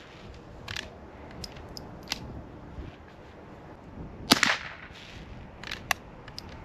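A single .22 LR shot from a Henry Golden Boy lever-action rifle about four seconds in, a sharp crack with a short tail. Several lighter clicks come before and after it as the lever is worked between shots.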